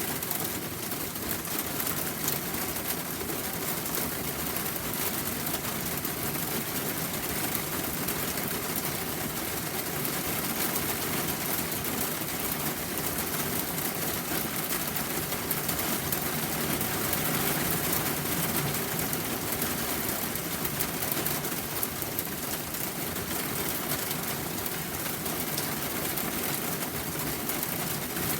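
Steady rainfall, a dense, even patter of drops.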